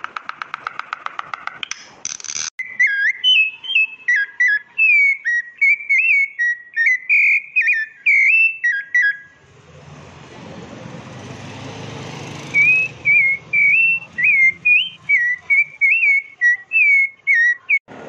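Birdsong: a rapid clicking trill, then a long run of short, clear whistled notes that bend up and down in pitch. The whistling breaks off for a few seconds of soft rushing background, then resumes.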